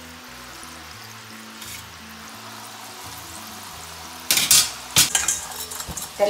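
Soft background music, then about four seconds in a loud sudden sizzle as raw murukku dough spirals go into hot oil, the oil bubbling and crackling hard, with a couple of sharp clatters of the metal slotted spoon.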